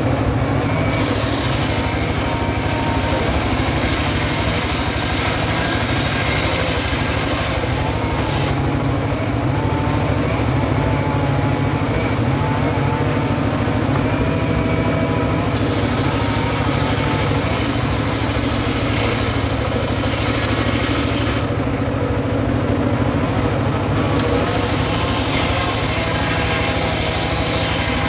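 Engine of a homemade circular log saw running steadily at constant speed.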